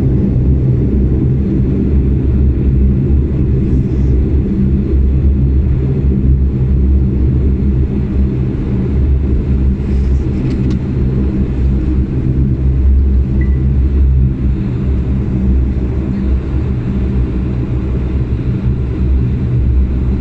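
Bombardier Dash 8 Q400's Pratt & Whitney PW150A turboprops heard from inside the cabin while the aircraft taxis: a loud, steady low drone with several held tones.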